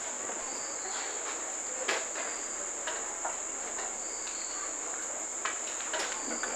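Crickets trilling steadily, one high unbroken note, with a couple of faint knocks.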